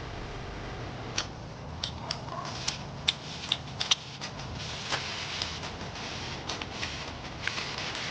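Eating at a meal: a run of irregular sharp clicks and taps of chopsticks and bowl over a steady hiss.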